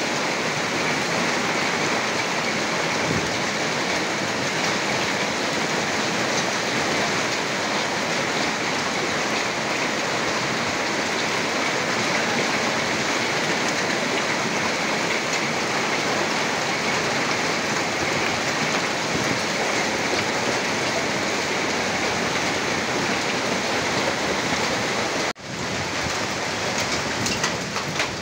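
Heavy rain mixed with hail pelting down on a street and corrugated metal roof sheets, a dense steady hiss of drops and hailstones. It cuts out for a moment near the end, then the downpour continues.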